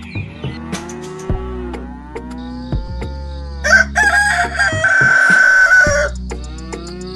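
A rooster crowing once, loud and drawn out for about two seconds, about halfway through, over a steady background music track.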